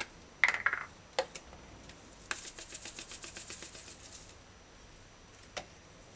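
Plastic spice shaker of dried basil being handled and shaken: a short scrape and a click, then a quick run of light ticks for about two seconds as the herb is shaken out, and a single click about five and a half seconds in.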